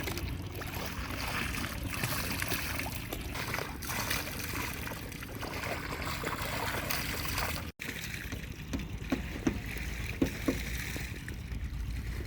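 Water splashing and flowing steadily over a low steady rumble. The sound drops out for an instant about eight seconds in, and a few light knocks follow.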